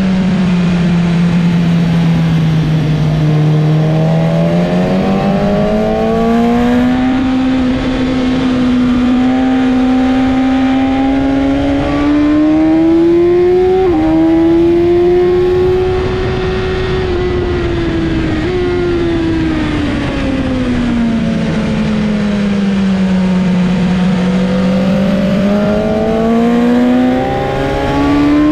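BMW S1000RR inline-four engine heard onboard at track pace: revs drop as it slows for a corner, climb steadily under hard acceleration with quick gear changes as sudden steps in pitch in the middle, drop again for the next corner and rise at the end, over steady wind rush.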